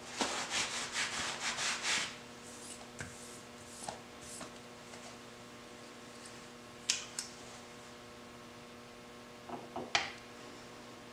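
Cloth and hands rubbing as the oily steel toolmaker's vise is wiped down, dense for the first two seconds and then a few light knocks. Near the end the steel vise is set down on the flat stone with a short clatter and a sharp clack, over a steady mains hum.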